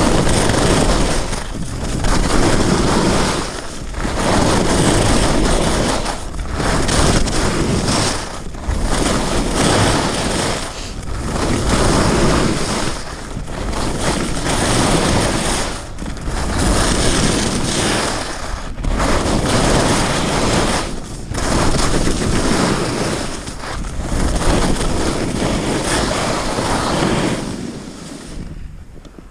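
Skis scraping and carving over hard, crunchy snow, mixed with wind rushing on the microphone. The noise swells and dips with each turn, about every two seconds, and dies away near the end as the skier slows to a stop.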